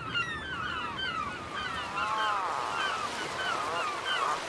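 A seabird colony calling: many short, squeaky, overlapping calls rising and falling in pitch, one after another, over a low rush of sea and wind.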